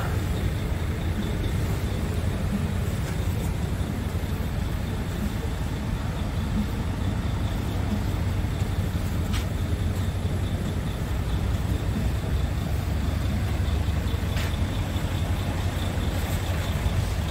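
Scania P truck's diesel engine idling steadily: a low, even rumble with a faint steady high whine above it.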